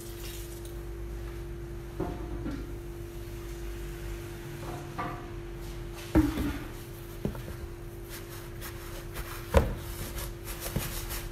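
A wooden spoon knocking and scraping in a large mixing bowl as flour and water are worked into pizza dough: scattered knocks, two sharper than the rest, over a steady hum.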